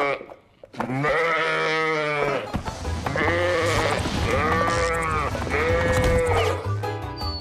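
Cartoon sheep bleating: one long baa, then three shorter ones, each rising and falling in pitch. Background music with a low beat comes in under them a few seconds in.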